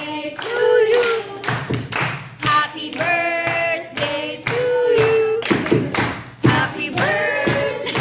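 Voices singing a song in long held notes, with hand clapping.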